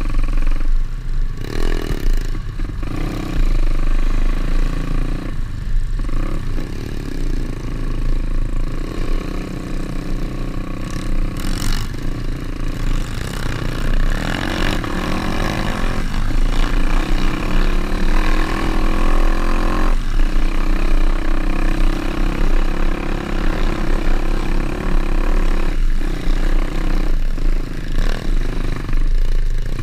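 Pit bike's single-cylinder engine running as it is ridden, the revs rising and falling with the throttle, the revs climbing about halfway through.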